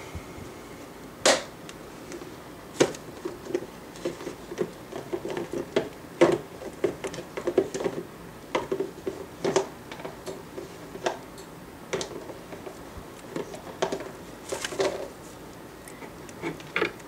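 Baby frilled dragons chewing feeder insects: irregular sharp clicks and crunches, a few to several a second, with pauses in between.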